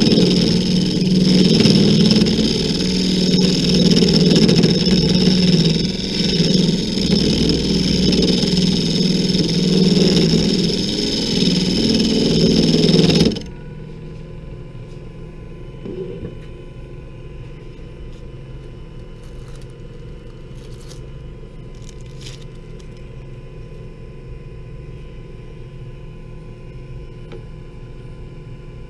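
WEN 3421 mini lathe spinning a wood blank with a rasp held against it: a loud, steady rasping scrape. About 13 seconds in it stops suddenly, leaving the lathe's quieter steady running hum, with a light knock and a few faint clicks.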